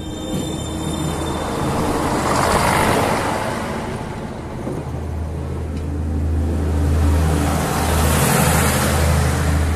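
CNR diesel railcar passing directly overhead, wheels rolling on the rails. The noise builds over the first couple of seconds, and from about halfway through a steady low diesel engine drone dominates as the underframe passes above.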